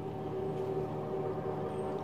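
Steady drone of a distant motorboat engine, holding one even pitch, over gentle water lapping at the lake shore.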